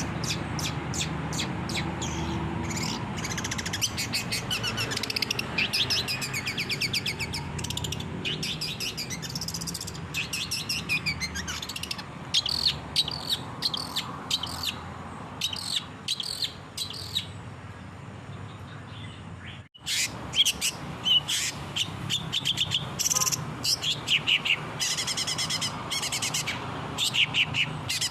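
Long-tailed shrike (cendet) singing a fast, continuous chattering song of rapid chirps and trills over a steady low hum. The song cuts out abruptly for a moment about two-thirds of the way through, then resumes.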